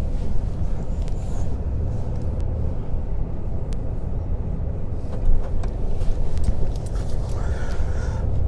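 A car manoeuvring slowly through a multi-point turnaround, heard from inside the cabin: a steady low engine and road rumble, with a light knock about five seconds in.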